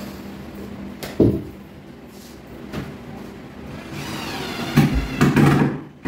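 Cabinet panels being handled and fitted into a wardrobe frame: a sharp knock about a second in, a lighter knock, then a scraping squeak and a cluster of loud knocks and thuds near the end.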